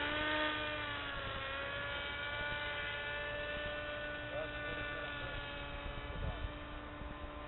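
Motor and propeller of a radio-controlled scale model Siebel 201 in flight, giving a steady whine. The pitch dips slightly in the first second or so as the model passes, then holds while the sound slowly fades.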